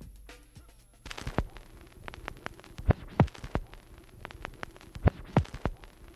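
A series of sharp knocks and low thumps at irregular intervals, several coming in close pairs, over a faint steady hum.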